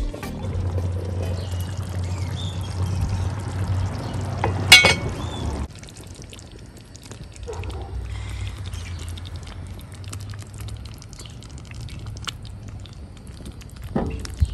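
Thick tomato and groundnut stew bubbling in an enamelled cast-iron pot, soft popping and gurgling. One sharp clink about five seconds in, and a knock near the end.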